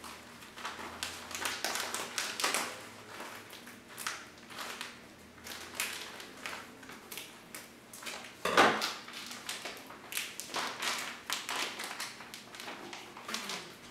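Scissors snipping open a plastic bag of flour, with the bag crinkling and crackling in irregular bursts and one louder crackle a little past halfway.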